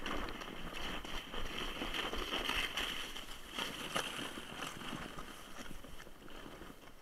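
Sled sliding down a snowy slope, its bottom hissing and scraping over the snow with a few sharp knocks from bumps. It fades away as the sled slows to a stop near the end.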